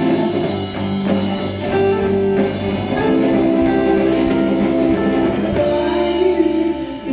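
A rock band playing an instrumental passage: guitar chords over a drum kit, with a steady hi-hat or cymbal beat.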